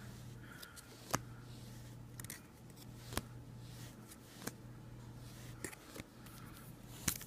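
Faint handling of trading card packs: a few sharp, separate clicks and light taps spaced a second or so apart, over a low steady hum.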